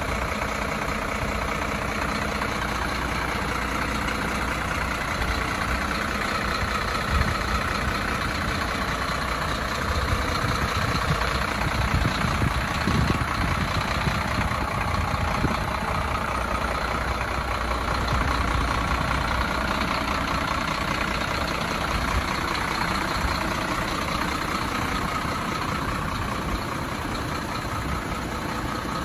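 Mercedes-Benz Axor 2633 cement mixer truck's diesel engine idling steadily.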